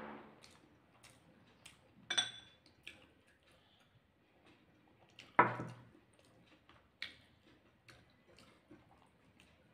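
Quiet clicks and clinks of eating rice by hand from a plate, with a ringing clink about two seconds in and a louder thud a little past the middle.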